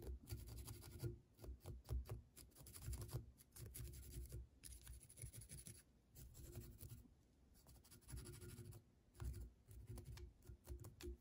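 Velcro brush raked repeatedly along a spun dubbing loop, a faint, irregular run of short scratchy strokes, brushing the fibres out so they hang loose.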